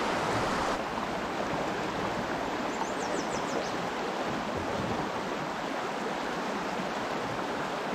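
River current rushing steadily, a river running high at about 200 cubic feet per second.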